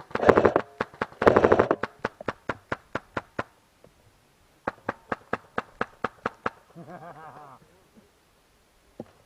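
A fast, even run of sharp knocks, about five a second, broken near the start by two louder rasping bursts; the knocks stop briefly and resume, and a short voice sounds about seven seconds in.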